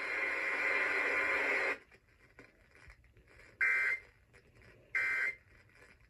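Broadcast audio through a small weather radio's speaker. Noisy radio sound cuts off sharply about two seconds in. Then come two short, buzzy two-tone data bursts a little over a second apart: the Emergency Alert System's end-of-message code, closing the alert.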